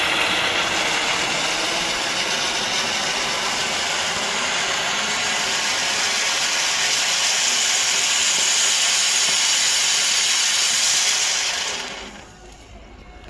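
Handheld pyro gun firing: a loud, steady hiss that runs for about twelve seconds and then dies away near the end.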